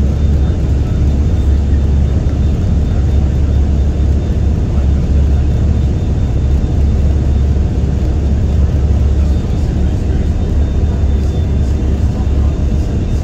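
Hovercraft's engines and propellers droning steadily, heard from inside the passenger cabin while under way over water.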